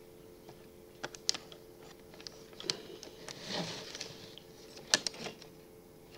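Scattered sharp clicks and taps from hands handling the laptop and its parts on a workbench, with a brief rustle in the middle and the sharpest click about five seconds in, over a faint steady hum.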